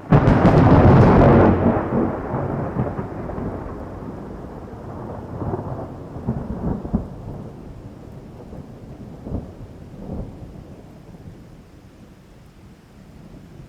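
Thunderclap: a sudden loud crack, then rolling thunder that rumbles on and slowly dies away, with a few smaller cracks partway through.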